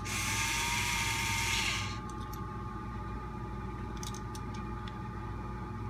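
Cordless electric screwdriver running for about two seconds, backing a screw out of an RC truck's chassis, its steady whine dropping as it stops; a few faint clicks follow.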